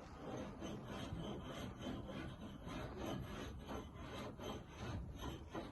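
Repeated scraping strokes on wood, about three a second.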